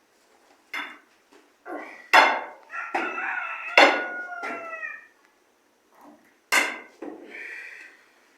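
Chickens calling: short, sharp squawks and a drawn-out rooster crow from about three to five seconds in that falls in pitch as it ends.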